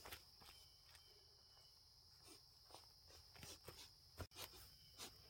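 Near silence: a faint, steady, high insect drone, with a few soft clicks and rustles of someone moving in grass.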